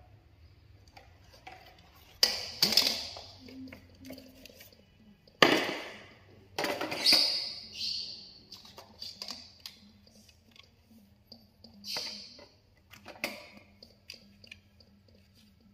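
Handling noise as a plastic face shield and a mask are set down on a stainless-steel portable gas stove: a few separate sharp knocks and scrapes a couple of seconds apart, the loudest about five seconds in.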